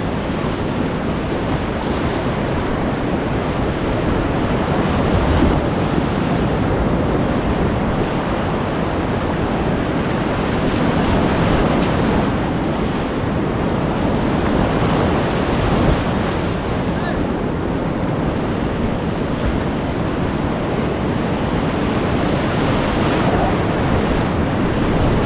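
Whitewater rapids rushing loudly and steadily around a kayak, close to the microphone, with spray and wind buffeting it.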